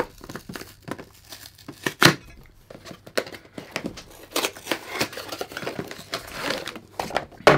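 Small cardboard box being opened by hand: rustling and scraping of cardboard as flaps are pulled and torn open, with scattered sharp snaps, the loudest about two seconds in and again just before the end.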